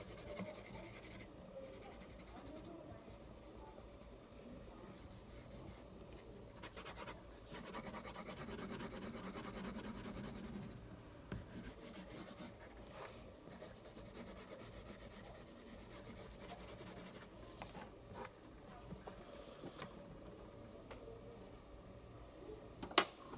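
Graphite pencil shading on drawing paper: a scratchy rubbing in quick back-and-forth strokes, with a few louder swipes. One sharp click near the end.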